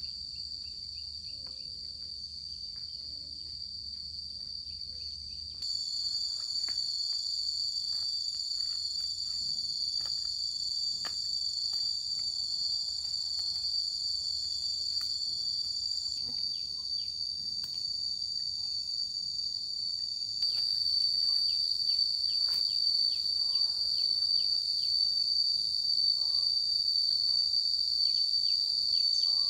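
A steady, high-pitched chorus of insects with faint scattered clicks beneath it. The chorus steps up abruptly in loudness about six seconds in and again about twenty seconds in.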